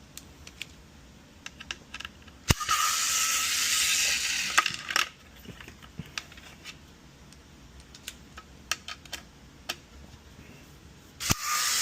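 Electric screwdriver whirring for about two and a half seconds as it backs out a screw, then again near the end, with small clicks and taps of screws and tools being handled in between.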